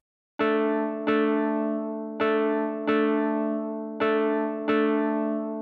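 Short keyboard jingle: the same bright chord struck six times in a long-short rhythm, each strike ringing out and fading before the next.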